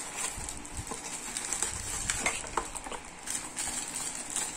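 A small plastic packaging bag and a cardboard box being handled: light crinkling and rustling with a few faint clicks and soft knocks.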